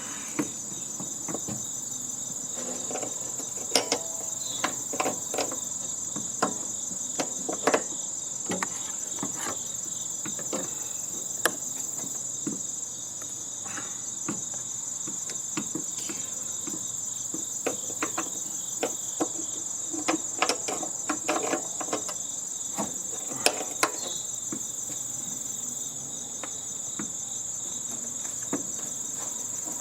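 Steady high-pitched insect chorus with irregular clinks and knocks of hand tools working on the metal parts of a heating and air-conditioning unit being taken apart.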